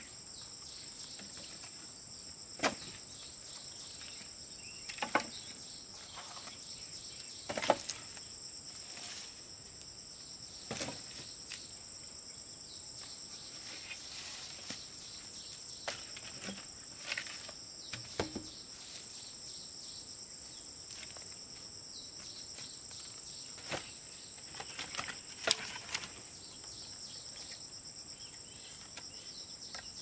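A steady, high-pitched chorus of insects trilling without a break. Scattered sharp knocks and clacks come every few seconds over it, the loudest about a quarter of the way in and again near the end.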